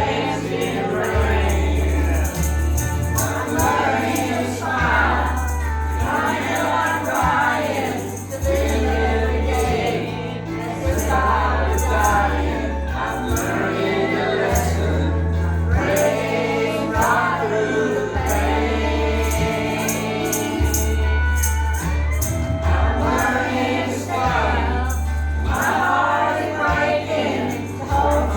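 Gospel song with choir singing over a steady bass line and tambourine-like percussion.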